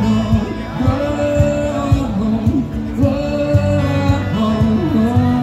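Live acoustic band music: a man sings long, sliding notes into a microphone over two strummed acoustic guitars and a steady cajón beat.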